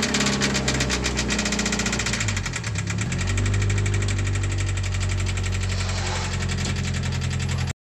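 FA20 flat-four engine of a 2013 Scion FR-S running with rod knock, a rapid knocking through the engine note from a failed connecting-rod bearing; the crankshaft is bent. The engine speed changes about two to three seconds in, and the sound cuts off suddenly near the end.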